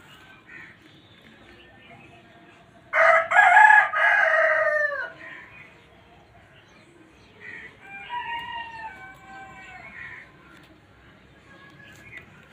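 A rooster crowing loudly for about two seconds, the call dropping in pitch at its end. A second, fainter crow follows a few seconds later.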